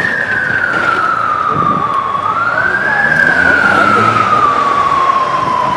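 Emergency vehicle siren on a slow wail: the tone climbs in about a second and sinks over about three seconds, repeating, over engine and traffic noise.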